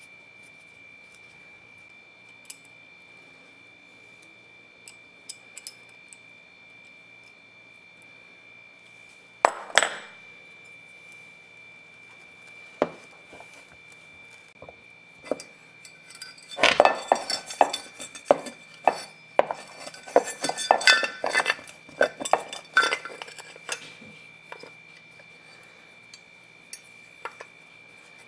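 Small metal parts of an electric drill motor clicking and clinking as they are fitted together by hand: a sharp double click about ten seconds in, then several seconds of busy rattling and clinking as the aluminium housing and end plate go back on.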